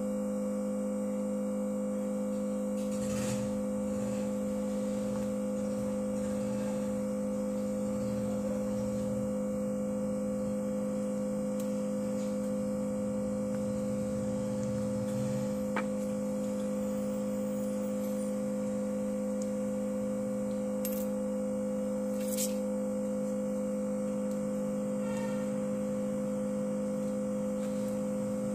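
A steady electrical hum of a few low tones, with a few faint clicks from a plastic pry card worked around the edge of a phone's back panel.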